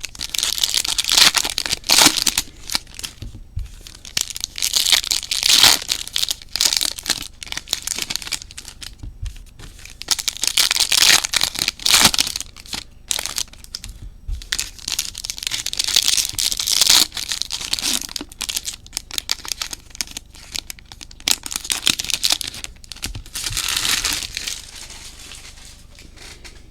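Foil wrappers of trading card packs being torn open and crinkled by hand, in repeated bursts of crackling that stop a couple of seconds before the end.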